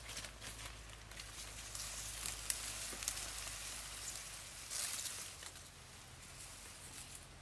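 Grass and leafy brush rustling and footsteps as a person walks through undergrowth, with a few sharp crackles of stems or twigs and a louder swish of foliage about five seconds in.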